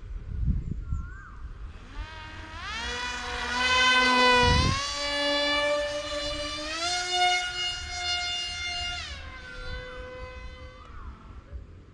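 Electric motor and propeller of a foam RC flying wing whining as the throttle is opened. The pitch rises, holds, steps higher, then drops away as the throttle is cut, with a brief low thump about four and a half seconds in.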